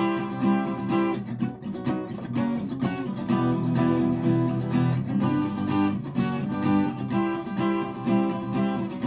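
Guitar strumming chords in a steady, even rhythm, with no singing: an instrumental passage between verses of the song.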